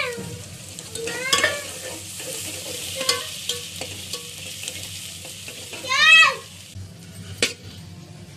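Chopped onions frying in oil in an aluminium pot, a steady sizzle, while a metal slotted spoon stirs them, scraping and tapping against the pot with a few short squeaks. The sizzle drops away abruptly near the end, leaving only spoon taps.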